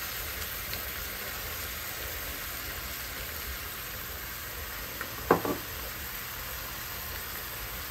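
Tilapia fillets frying in butter in a pan, a steady sizzle. A single brief knock about five seconds in.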